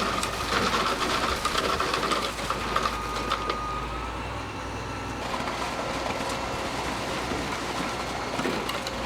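Concrete truck machinery running steadily over a low engine hum, with rattling clicks and a high steady whine for the first few seconds. The tone shifts about five seconds in.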